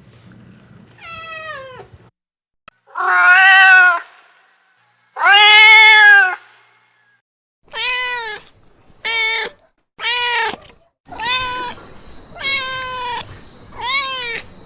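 Cats meowing, about nine separate meows from more than one cat, the two longest and loudest early on. A steady high whistle-like tone sits behind the last few meows.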